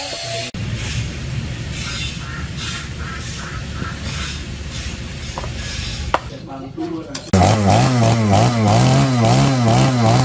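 Gasoline chainsaw cutting wood, a rough rasping sound pulsing a few times a second. Near the end a louder pitched drone takes over, wavering up and down in pitch about twice a second.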